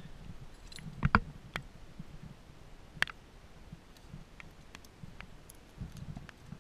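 Scattered sharp clicks and light knocks as trapping gear is handled in the hands, with a loud double click about a second in and another single click about three seconds in.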